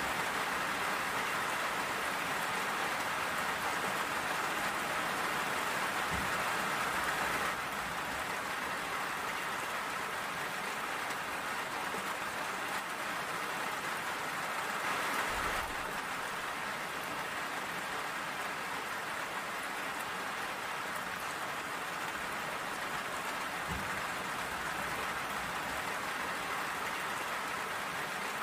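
Steady rain falling: an even, continuous patter of drops with no breaks, dipping slightly in level about a quarter of the way through.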